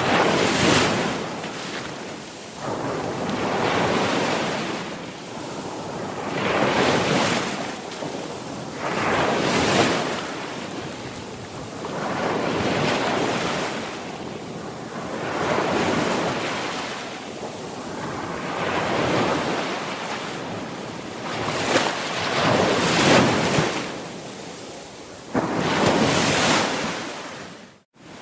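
Sea waves breaking and washing in, one surge swelling and fading about every three seconds. The sound cuts out suddenly for a moment near the end.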